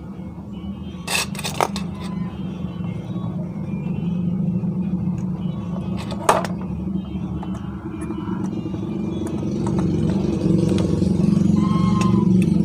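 A low steady drone that grows louder toward the end, with a few sharp clicks about a second in and one more about six seconds in.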